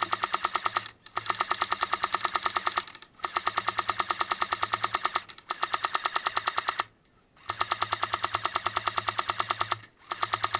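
Airsoft M60 support gun firing long full-auto bursts, each a fast, even rattle of about a dozen shots a second, with short pauses between bursts about every two seconds.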